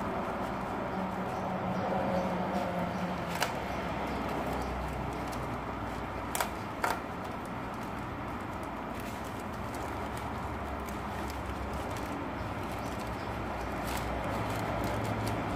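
Black plastic bag wrapping being handled and pulled open by hand, with three sharp clicks or snaps (two close together near the middle), over a steady background hum.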